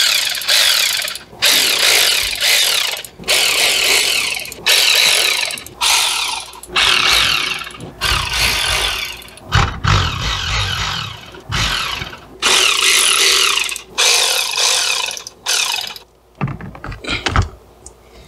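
Cordless ratchet running in about a dozen short bursts of roughly a second each, spinning out the bolts of the transmission oil pan. Softer knocks and handling noise follow near the end.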